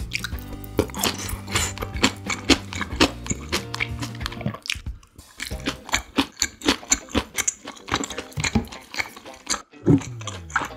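Close-miked chewing of chop steak and bell peppers: wet, sticky mouth sounds and quick clicks, one after another, with a low hum of changing pitch in the first few seconds.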